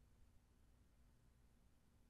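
Near silence: faint steady hiss and low hum of the recording's noise floor.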